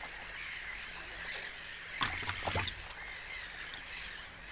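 Grebes on a floating reed nest splashing the water in a short cluster about two seconds in, over a steady low hiss of open water.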